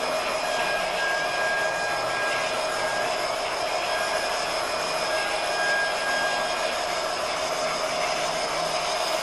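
Gauge 1 model narrow-gauge train running along the layout track, a steady whirring hum with faint high tones that come and go.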